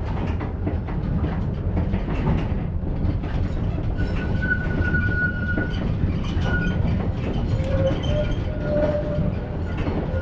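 Tram running along the track, heard from inside the passenger car: a steady low rumble, with a thin high squeal for about two seconds near the middle.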